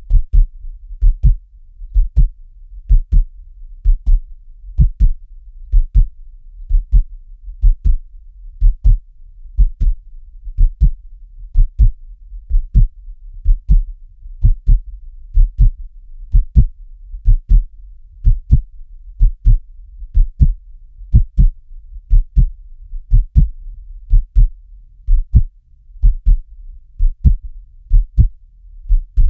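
Heartbeat sound effect: deep paired lub-dub thumps repeating steadily at about one beat a second, over a faint low hum.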